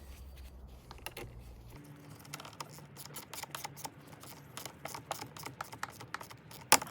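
Socket wrench clicking in quick, irregular strokes as a battery terminal clamp is tightened, with one sharper click near the end.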